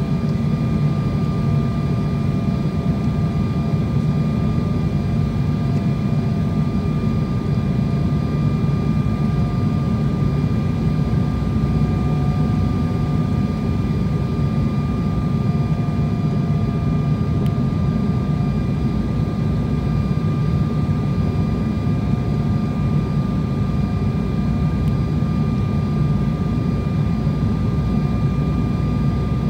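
Airliner cabin noise on approach to landing: the engines and airflow make a steady low rumble, with a few faint steady whining tones above it, one of them wavering slightly in pitch.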